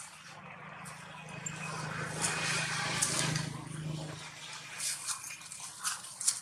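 A motor vehicle's engine hum swelling toward the middle and then fading, as if passing, with scattered light clicks and rustles.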